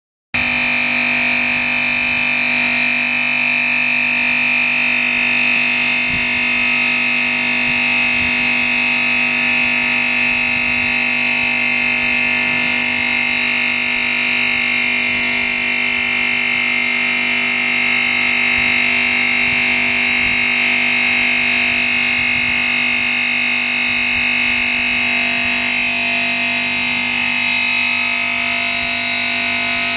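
Diamond blade of a CNC five-axis bridge saw cutting a stone slab: a loud, steady whine with a constant high tone over a low hum from the blade motor.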